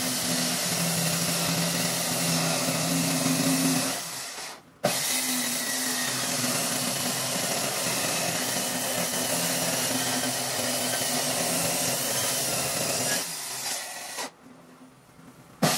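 Handheld circular saw ripping through a thick wooden slab along a metal straightedge, its motor running steadily under the cutting noise. The sound drops out briefly about four seconds in and comes back abruptly, then dies away near the end.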